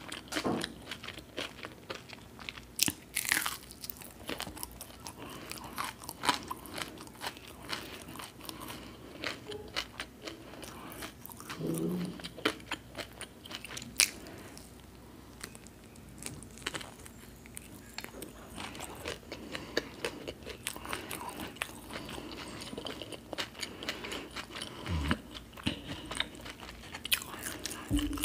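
Close-up eating sounds of kanda bhajiya pav, fried onion fritters in bread: bites, irregular crunches and moist chewing clicks.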